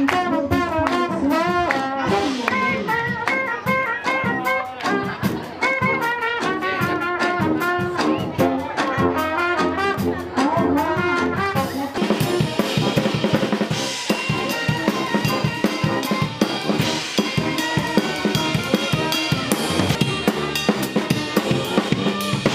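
Brass band playing: horns carry a melody over a drum kit beat. About halfway through, the sound cuts to a busier stretch led by drum kit and cymbals, with the horns further back.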